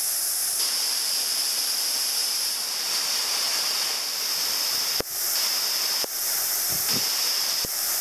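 Steady rush of a waterfall pouring down a rock gorge, a hissing noise with no pitch, broken by a few short clicks in the second half.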